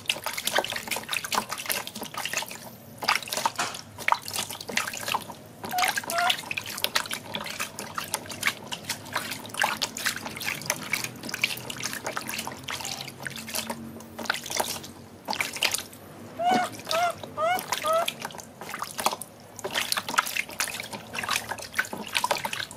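Water splashing and dripping in a plastic tub as a hand scoops water over a baby monkey, in quick uneven splashes. A few short chirping calls are heard now and then.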